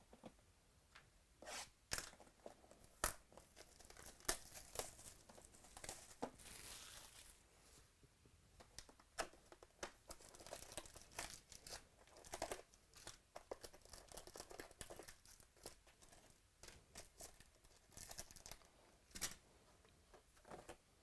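Trading card packs being opened by hand: faint tearing and crinkling of the pack wrappers, with scattered sharp clicks and rustles.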